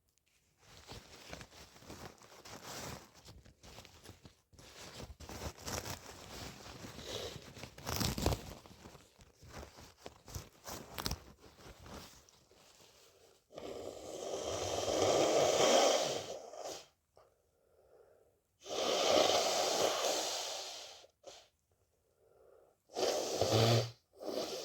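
Tissue rustling and crinkling for about twelve seconds, then two long nose blows into the tissue, each lasting two to three seconds, and short sneezing bursts near the end.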